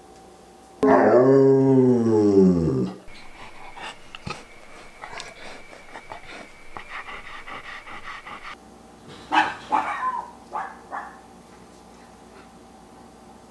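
Old English Sheepdog vocalizing: a loud, long, low moan that rises and then falls in pitch over about two seconds. Quieter snuffling and breathing sounds follow, then a few short, sharp calls about nine seconds in.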